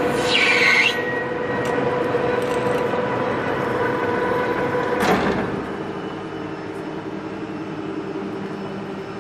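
Dean Smith and Grace Type 21 lathe turning a grade 5 titanium bar: a steady cutting and gear noise with a hum, and a brief high squeal about half a second in. About five seconds in there is a clunk, after which the lathe runs on more quietly.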